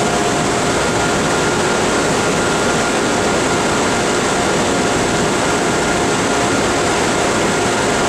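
Steady, even rushing noise of treated effluent flowing through an ultraviolet disinfection channel and the plant's equipment, with a faint steady tone held underneath.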